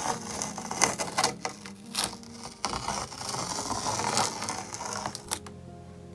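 Masking tape being peeled off the edge of an acrylic painting on canvas: a crackly ripping with sharp clicks and snaps, dying down near the end.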